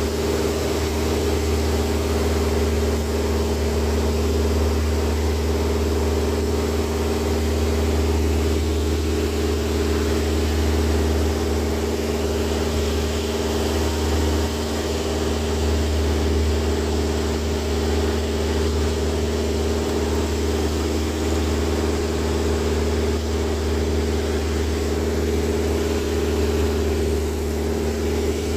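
Van's RV-4 light aircraft's piston engine and propeller running steadily in flight, heard from inside the cockpit as a constant low hum with rushing air noise over it.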